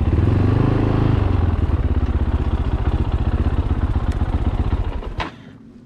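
Fantic Caballero 500 Rally's single-cylinder four-stroke engine running at idle with an even thumping beat, a little louder in the first second, then cutting off about five seconds in.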